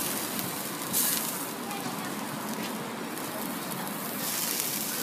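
Thin pancake sheets sizzling on a hot flat griddle: a steady hiss that swells about a second in and again near the end.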